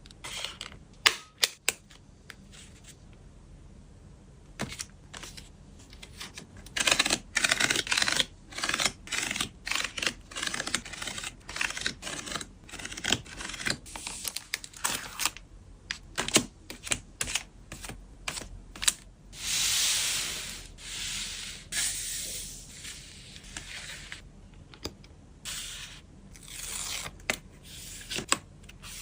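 Photocards and plastic packing materials being handled: irregular taps, clicks and crinkling plastic, with a longer rustle about twenty seconds in.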